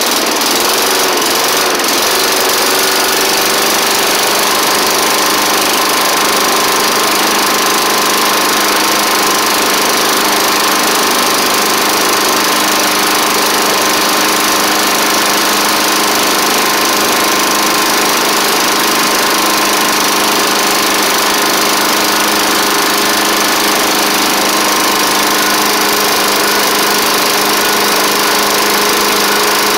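Single-cylinder Tecumseh engine on a Snapper Hi Vac push mower running steadily just after restarting, its speed settling in the first second or two. It is an old, neglected engine freshly fitted with a new carburettor, and the owner says it doesn't really sound the best.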